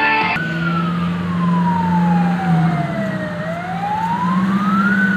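A siren wailing slowly: it falls in pitch for about three seconds, rises again, then starts to fall, over a steady low drone. Guitar music cuts off abruptly just as it begins.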